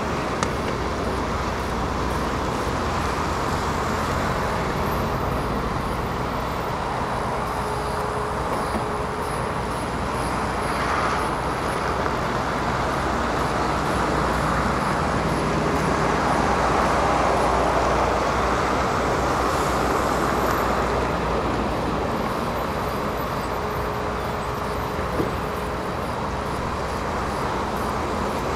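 Heavy diesel machinery running steadily, with a slight swell in level partway through.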